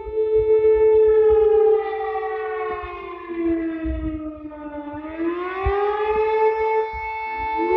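Emergency alarm siren wailing: a steady tone that slides slowly down in pitch about halfway through and rises back up, with low thumps underneath.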